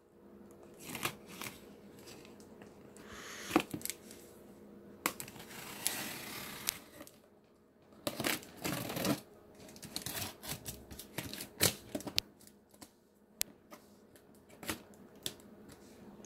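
Handling of a cardboard parcel and its packing: scattered light clicks and knocks with a few short rustling, scraping bursts as the box is worked open.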